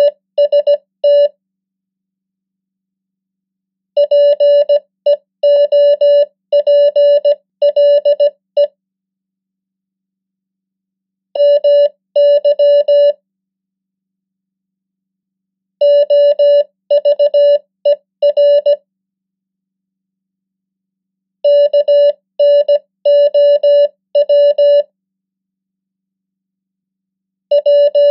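Morse code practice tone, one steady pitch keyed on and off in dots and dashes at 15 words per minute. It sends common English words one at a time, each word a short cluster of beeps followed by a silent pause of about three seconds.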